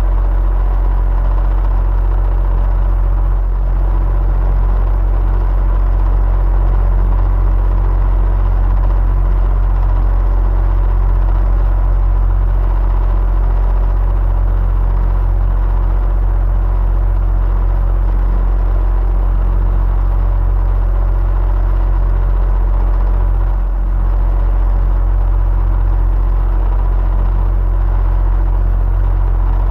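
Electric fan running continuously: a steady deep rumble with a faint whirring hum, unchanging throughout.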